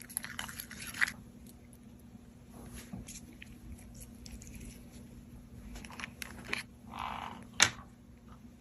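Slime being squished and worked by hand, crackling and clicking, denser in the first second, with scattered pops and one sharp snap near the end.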